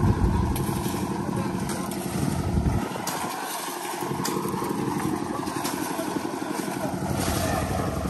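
Small petrol engine running steadily, its low rumble thinning about three seconds in, with a few light knocks of concrete work.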